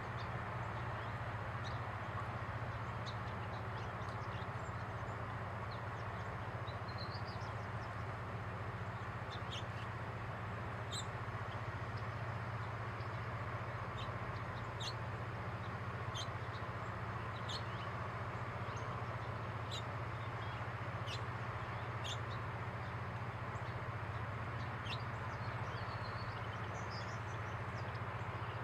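Female house finch calling: short, sharp chirps at irregular intervals, with a couple of quick rising notes, over a steady low background rumble.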